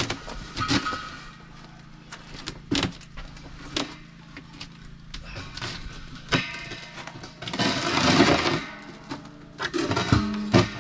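A 200-pound steel propane tank being tipped and walked across a concrete slab: scattered knocks and clanks, and a longer scraping run about three-quarters of the way through.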